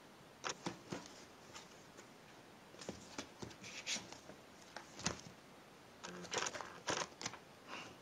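Faint, scattered scratches and taps of a kitten's paws and claws, and a small owl's feet, on a cardboard box house and its paper floor, coming in short clusters and busiest near the end.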